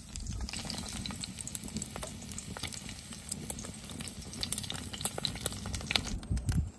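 Pieces of wild hog fat sizzling and popping in a cast iron skillet as they render down into lard, with many small sharp pops.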